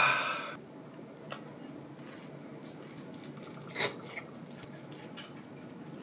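Stout being poured from a glass bottle into a glass, stopping about half a second in. A faint clink of tableware follows a few seconds later.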